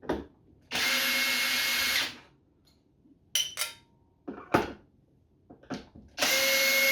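Power drill with a Torx bit running in two short bursts of about a second each, backing screws out of a pressure washer's casing. A few clicks and knocks come between the bursts.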